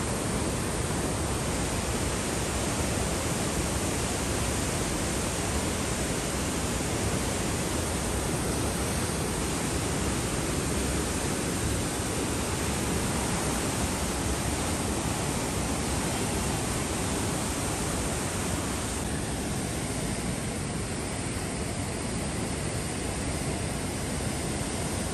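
Muddy floodwater rushing through the open gates of a river barrage: a steady, even rush of water that thins slightly in its higher range about three-quarters of the way through.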